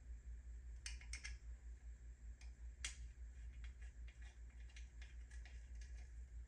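Scattered light clicks and taps of small parts and tools being handled while a chainring bash guard is fitted to a mountain bike crankset, over a steady low hum.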